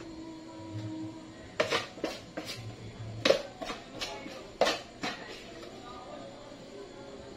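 A utensil scraping and knocking against a plastic food container as a sticky granola-bar mixture is scraped out, a series of sharp clicks and scrapes from about a second and a half in until about five seconds in.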